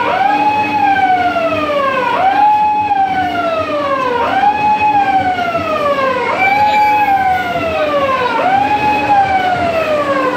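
A siren wailing in repeated cycles about every two seconds: each cycle jumps up in pitch and then slides slowly down, over a steady low hum.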